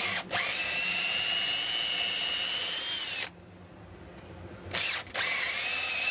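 Makita 18V cordless drill boring a quarter-inch hole into a wooden stick: a steady whine that stops a little past halfway, then starts again near the end.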